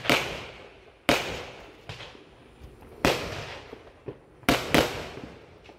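Aerial fireworks bursting: five sharp bangs, the last two in quick succession, each fading away over about a second.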